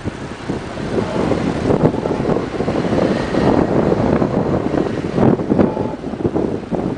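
Wind buffeting the microphone of a handheld camera carried on a moving bicycle: an uneven rush of noise that rises and falls.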